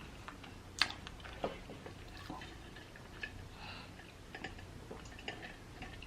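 Quiet mouth sounds of eating close to the microphone: scattered soft clicks and smacks, the sharpest about a second in.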